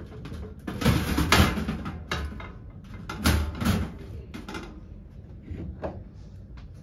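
Front cover of a three-phase distribution board being fitted back on by hand: two bouts of clattering knocks, about one second and three and a half seconds in, then a couple of lighter clicks.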